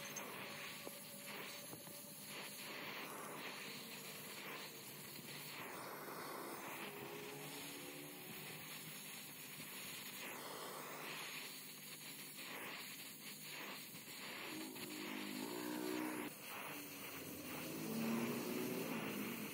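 Oxy-acetylene torch flame hissing steadily as a filler rod is melted into a crack in a steel plate.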